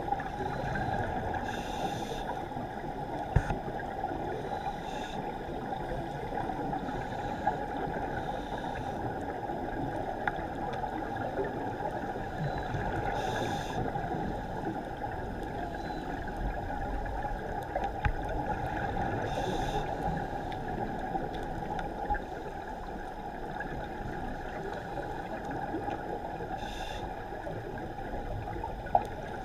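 Underwater ambience picked up through a diving camera's housing: a steady low rush and hiss, with brief bubbling bursts every few seconds from scuba regulators exhaling, and a few sharp clicks.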